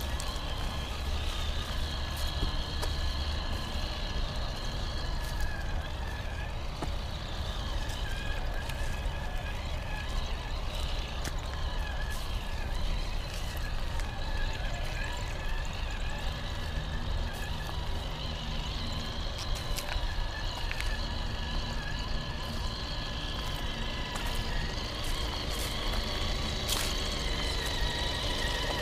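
Traxxas TRX-4 Sport RC crawler driving on a trail: the steady whine of its brushed electric motor and gears, with scattered clicks and crackles of tyres over dirt and stones and a constant low rumble.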